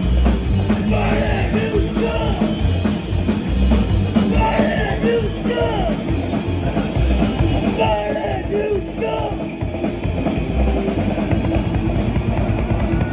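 Live psychobilly band playing: upright bass, drum kit and electric guitar, with a few short stretches of singing.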